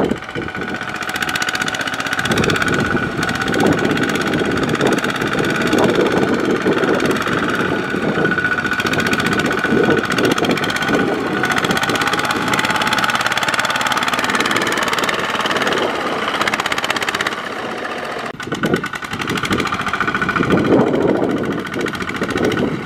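Two-wheel walking tractor's single-cylinder diesel engine running hard under load as it drags a loaded trailer through deep mud, its drive wheels churning in the rut. The engine eases off briefly about two-thirds of the way through, then picks up again.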